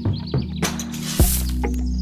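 Background music with a steady beat over held bass notes, and a hissing swell about halfway through.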